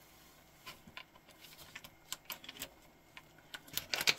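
Stainless steel watch link bracelet and clasp being handled on a tabletop: scattered small metal clicks and clinks, coming thicker and loudest near the end.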